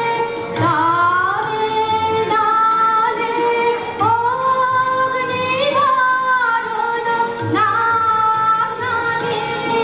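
Music: a woman singing an Indian song with instrumental accompaniment, in long held notes that slide up and down in pitch.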